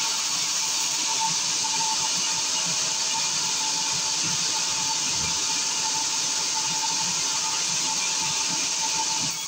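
Large band saw ripping a thick timber: a steady hiss of the blade cutting through the wood, with a steady high whine.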